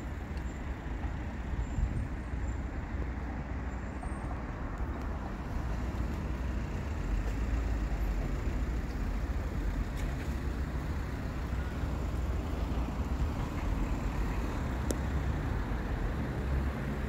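Steady outdoor street and traffic noise with a low rumble, a little louder from about seven seconds in.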